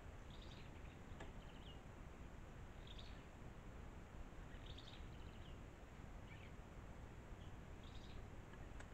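Faint, short bird chirps repeating every second or two over a steady low hiss.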